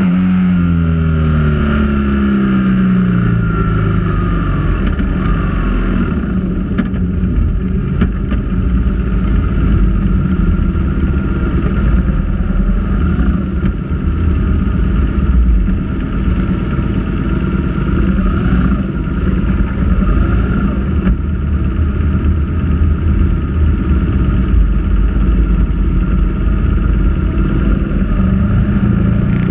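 Motorcycle engine heard from the rider's seat, with heavy wind rumble on the microphone. The engine note falls over the first few seconds as the bike slows, stays low through a long stretch of cruising where the wind noise dominates, and rises again near the end as it accelerates.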